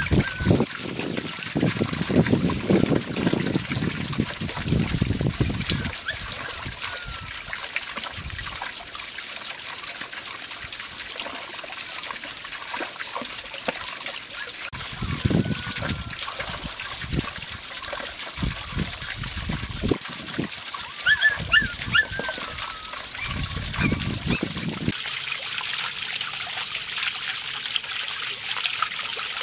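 Shallow water trickling in a small stone-lined pond, with low splashes and knocks as hands work stones in the water. About 25 seconds in it changes to a steadier, brighter rush of flowing water.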